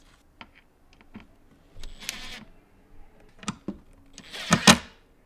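Scattered clicks and knocks of parts being handled, with two short bursts from a small power tool such as a cordless drill, the louder one about four and a half seconds in.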